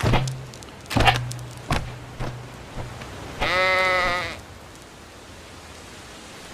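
A few dull knocks in the first two seconds, then a single animal bleat lasting just under a second, about three and a half seconds in.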